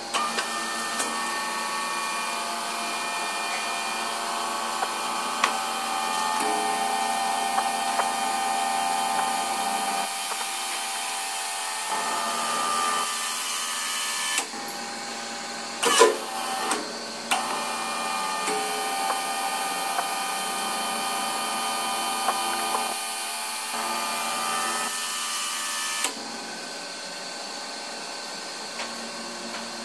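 Hydraulic pump motor of a four-column rubber vulcanizing press running under test, a steady mechanical drone with a whine whose tone shifts several times as the press works. A sharp knock about halfway through is the loudest sound, with a second knock a second later.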